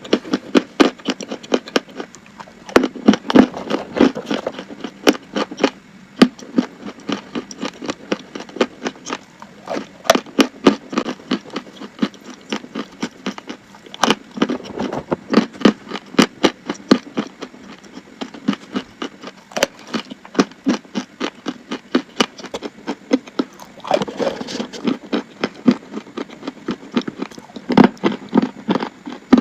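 Chalk being bitten and chewed close to the microphone: a dense run of dry crunching and crackling that goes on throughout, with louder clusters every few seconds.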